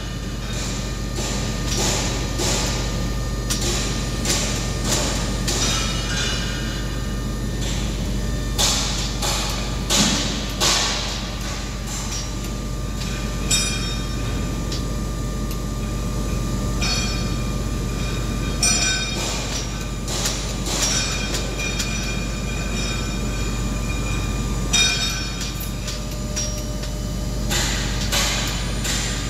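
Six-speed sequential gearbox being shifted by hand through its lever and rod linkage: repeated metallic clicks and clunks as each gear is thrown, some followed by a brief metallic ring. A steady low hum runs underneath.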